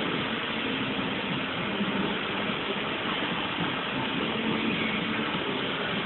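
Steady mechanical noise with a hiss and a faint hum, unbroken throughout.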